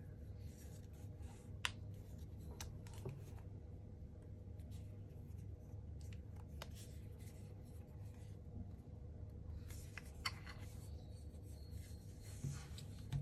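Hands handling a Xiaomi Grooming Kit Pro trimmer: soft rubbing of fingers on its plastic body with a few sharp clicks spread out, over a faint steady low hum. The trimmer is not running.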